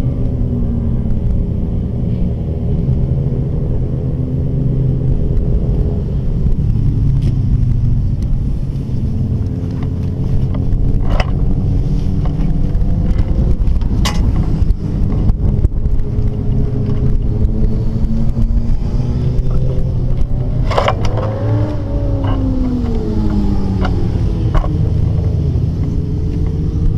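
Motorcycle engines running, their pitch falling and rising as bikes pass, over a steady low rumble, with a few sharp clicks.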